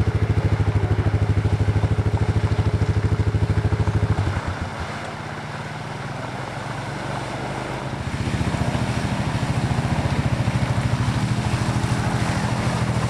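A four-wheeler (ATV) engine running with a rapid, even firing pulse. It eases off and goes quieter about four seconds in, then picks up again about eight seconds in.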